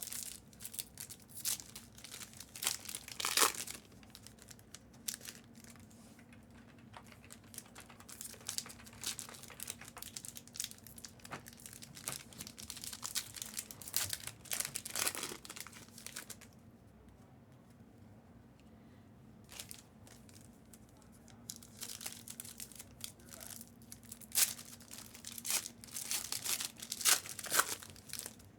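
Panini Prizm trading-card pack wrappers being torn open and crinkled, and cards handled, in irregular bursts of rustling and sharp clicks with a short lull about halfway through. A faint steady hum runs underneath.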